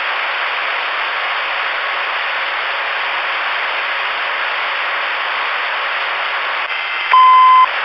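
CRE 8900 ten-meter radio receiver hissing with steady band static through its speaker. Near the end a loud steady beep of about half a second cuts in: a long beep on the received signal.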